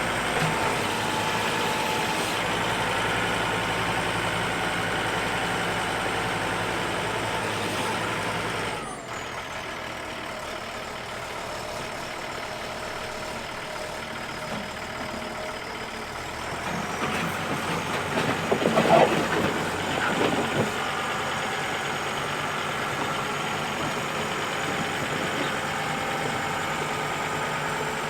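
John Deere farm tractor's diesel engine running steadily while it works a front-loader bucket. The sound drops abruptly and changes tone about nine seconds in, and there is a louder, uneven stretch a little past the middle.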